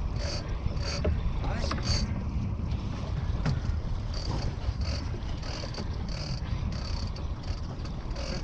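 Steady low rumble of wind buffeting the microphone on a boat at sea, with a short high-pitched squeak or click repeating about twice a second.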